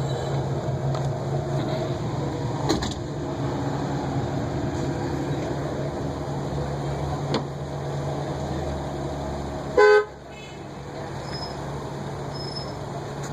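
A car horn beeps once, briefly, about ten seconds in, over a steady low mechanical hum.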